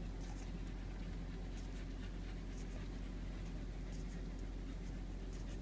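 A five-week-old Keeshond puppy sucking milk from a baby bottle: soft, irregular clicks and smacks at the nipple over a steady low hum.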